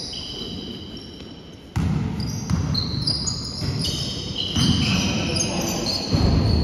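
Basketball game in a sports hall: short high squeaks of shoes on the court floor and a few knocks of the ball bouncing, over the echoing hum of the hall. The hall noise rises sharply a little under two seconds in.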